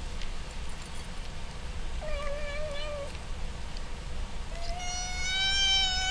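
Kitten crunching dry kibble with faint clicks, then meowing twice: a short call about two seconds in and a longer, louder one near the end.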